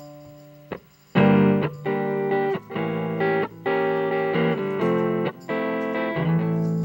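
A live band playing an instrumental introduction. A single guitar chord rings and fades, then about a second in the band comes in loud with rhythmic guitar chords and bass, broken by short stops.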